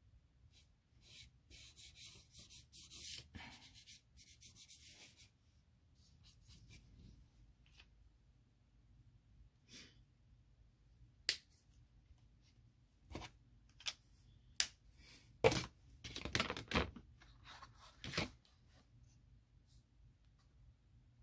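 Handling noises: a few seconds of scratchy rubbing, then a string of sharp clicks and knocks, the loudest bunched together in the later part.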